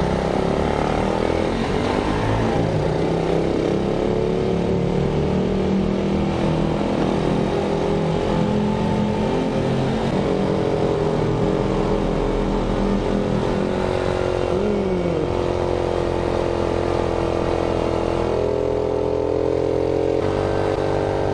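Honda Monkey Z50J's small single-cylinder four-stroke engine pulling away and then running at a steady riding speed through a road tunnel. The engine note climbs in the first couple of seconds, holds steady, and shifts pitch twice near the end.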